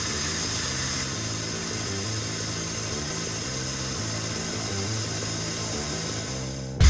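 Steady machining noise from a CNC lathe dry-turning a hardened steel shaft with a CBN insert, under soft background music with a slow stepping bass. Both cut off abruptly just before the end.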